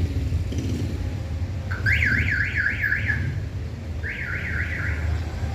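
Car alarm sounding in repeated rising whoops, about four a second, in two short bursts, over a steady low rumble.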